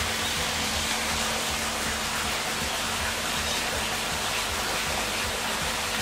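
Steady rushing of running water, with a faint steady low hum underneath.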